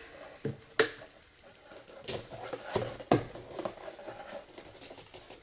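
Stack of magnets capped with bottle caps clicking and knocking against the tissue box and the pulsed Rodin coil as it is set in place under the coil. There are a few sharp knocks in the first three seconds or so, then faint rapid ticking.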